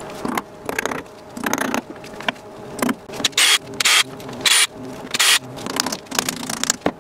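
Hand work on a milling machine's cast-iron head: metal parts knocking and clicking as they are handled, with a few short, louder scraping sounds in the middle.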